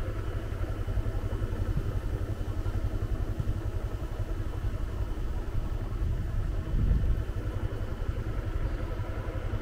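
Motorbike engine running steadily while the bike is ridden, with a low, fluttering rumble.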